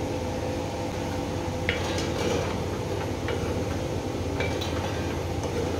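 Slotted spatula stirring a thick chicken curry in a metal pot, tapping against the pot a few times, over a steady low hum.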